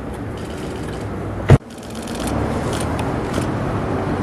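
Steady outdoor street background noise, broken about a second and a half in by one loud sharp click, after which the sound drops out briefly and the noise comes back.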